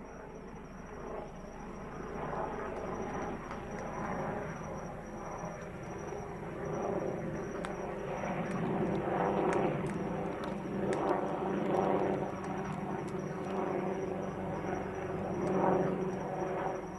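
Helicopter flying over, its engine and rotor noise building from faint to loud over the first few seconds and then staying loud with slow swells.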